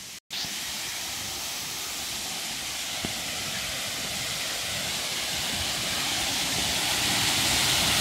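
Water rushing over rock ledges in a small waterfall: a steady hiss of falling water that grows gradually louder, after a brief gap at the very start.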